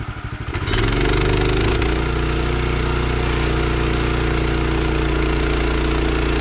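Portable sawmill's engine idling with a pulsing beat, then revving up about a second in and running steadily at high speed, as for a cut.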